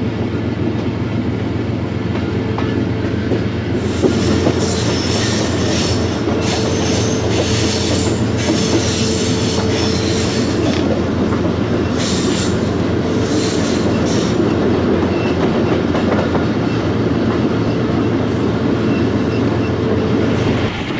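Pakistan Railways passenger train running, heard from an open coach door: a steady rumble of wheels on rail. From about four seconds in to about fourteen, high-pitched wheel squeal comes and goes, typical of flanges grinding on a tight curve like the Taraki horseshoe curve.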